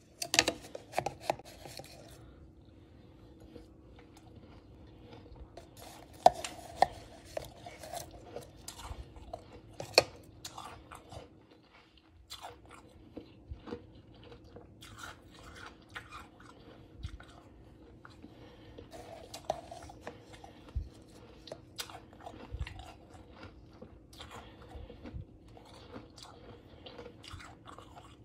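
Close-up crunchy chewing and biting of powdery crushed ice: irregular sharp crunches, some loud and separate, others in quick clusters.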